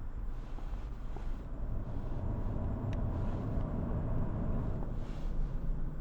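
A car passing with no engine note: tyre and road noise that swells for a few seconds and then eases off, with a brief click partway through.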